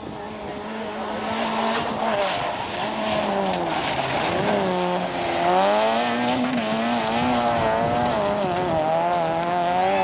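Rally car engine revving hard, its pitch rising and falling as it works through the revs, growing louder over the first half and staying loud.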